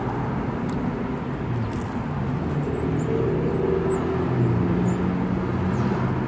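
A motor vehicle's engine running steadily, a continuous low hum.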